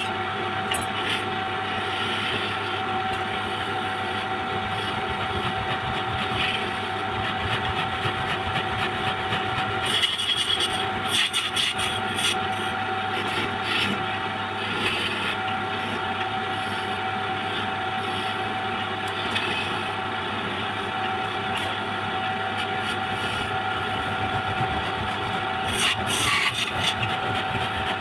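Wood-turning lathe running with a steady motor hum while a tool works the spinning wood, with louder scraping spells about ten seconds in and near the end.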